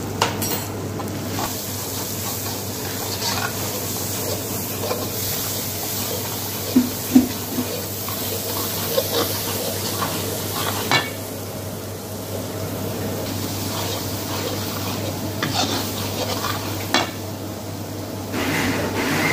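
A steel ladle stirring and scraping frying masala and powdered spices around a steel kadai, with a few sharp clanks of the ladle against the pan, over a steady low kitchen hum.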